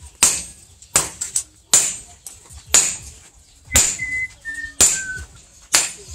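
Hammer blows on a red-hot steel knife blade held on an anvil, one sharp ringing strike about every second, seven in all.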